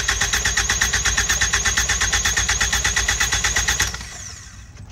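Four-cylinder Ford Focus ST engine cranked on its starter with the spark plugs out for a compression test: a whirring starter with a rhythmic pulse. It stops about four seconds in.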